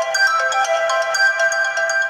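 ZTE Z222 mobile phone ringtone playing: a quick electronic melody of several notes sounding together, easing off slightly near the end of its phrase.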